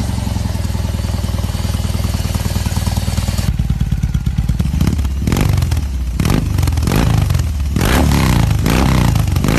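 BMW R 18's big air-cooled boxer-twin engine idling, then revved several times with throttle blips through its exhaust, each rev rising and falling.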